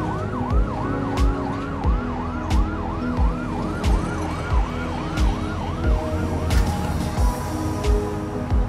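Emergency-vehicle siren in a fast yelp, its pitch rising and falling about three times a second, stopping about seven seconds in. Under it runs music with a steady thumping beat.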